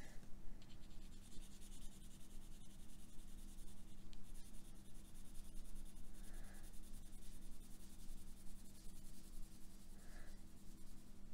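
Arteza woodless watercolor pencil scratching across bright white cardstock in quick, short strokes as a green swatch is coloured in.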